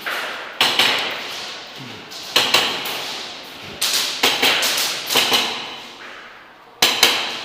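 Airsoft gunfire in an indoor arena: about nine sharp cracks, singly and in quick pairs at irregular intervals, each trailing off in echo.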